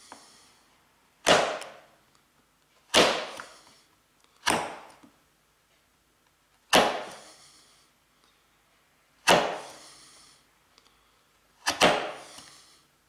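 Sharp bench chisel pared down through wood by hand pressure, slicing crisply: six cuts a second or two apart, each starting suddenly and trailing off, the last one doubled.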